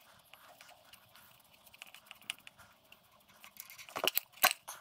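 Faint small clicks and taps of metal fittings as the fuel pipe's union nut is unscrewed by hand from a tractor fuel lift pump. A cluster of louder clicks comes near the end.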